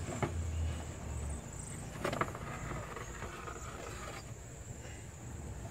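A few light clicks and knocks from hands handling the plastic radiator fan shroud, over a low hum that fades out about a second and a half in.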